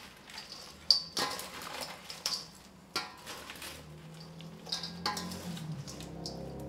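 A serving spoon clinking and scraping against a stainless steel mixing bowl as a Caesar salad is tossed: several sharp clinks with a short metallic ring. Low background music comes in after about four seconds.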